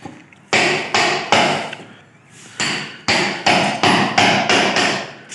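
Hammer striking a steel cold chisel into a tiled concrete counter, chipping it away around a kitchen sink. About ten sharp blows come in two runs: three, a short pause, then a quicker run of about seven.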